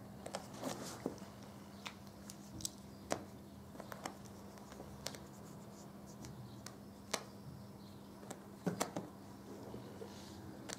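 A cat's claws scratching and snagging on a pile rug as it paws at a string: irregular sharp scratches and clicks, with a quick cluster near the end.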